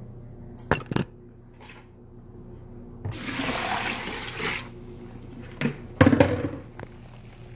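Pot of blanching water and green beans poured out into a plastic strainer in a sink: a rush of water lasting about a second and a half, with sharp knocks and clanks of the pot before and after it.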